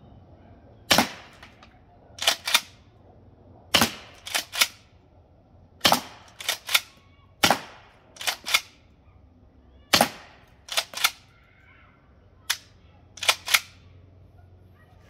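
Kel-Tec KS7 12-gauge pump shotgun firing less-lethal rounds: about six shots a couple of seconds apart. Each shot is followed by a quick double clack as the pump is worked back and forward to chamber the next round.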